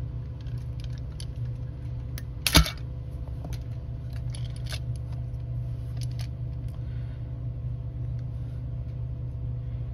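Small clicks and rattles of plastic and metal parts as an O gauge model locomotive chassis and its truck are handled, with one sharp snap about two and a half seconds in, over a steady low hum.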